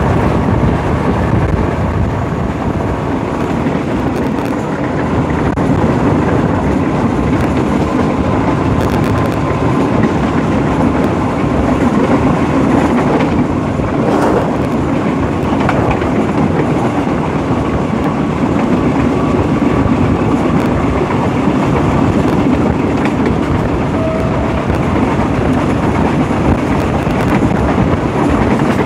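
Diesel locomotive running at speed along the line, heard from beside its cab: a steady engine drone mixed with the noise of the train on the rails and rushing air.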